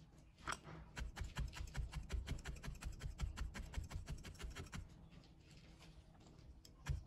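Felting needle in a pen-style holder stabbing white wool again and again into a cloth-covered work base: a quick run of soft pokes that thins out after about five seconds, with one louder stroke near the end.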